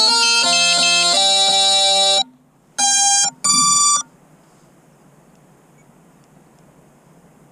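A loud electronic melody of bright, buzzy notes, ringtone-like, that cuts off suddenly about two seconds in, followed by two short beeps; after that only a faint steady hiss.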